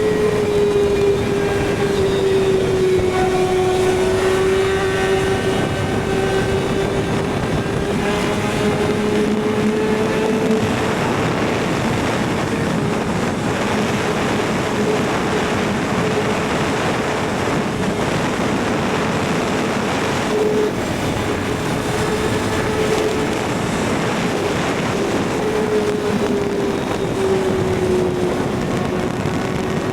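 Kawasaki ZX-6R's inline-four engine running at high, fairly steady revs while riding. Its pitch sags and climbs slowly a few times, over a steady rush of wind noise.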